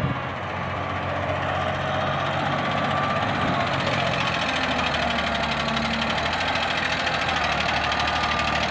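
Diesel engine of a shovel machine (excavator) running steadily, with a fast, even knock of its firing.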